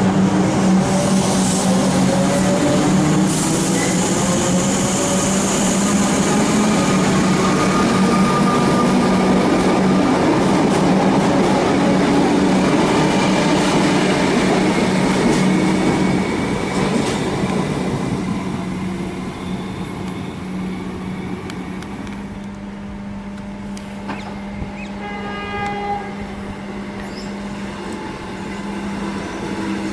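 Comeng suburban electric train pulling out of the station: motor whine rising in pitch over the first few seconds over the steady noise of the wheels and carriages passing, fading after about 16 seconds. A brief horn sounds about five seconds before the end.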